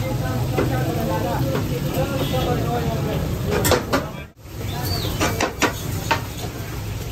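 Busy street-food stall: people's voices over the steady sizzle of chapli kababs frying in a wide pan of oil. The sound drops out briefly about four seconds in, and after that come a few sharp clicks of a metal spatula.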